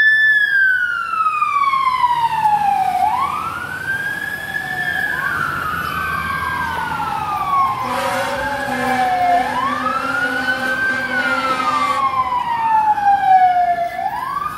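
Fire engine siren on a wail, loud and close: each cycle rises quickly and then falls slowly, about every five seconds, with a second sweep overlapping out of step.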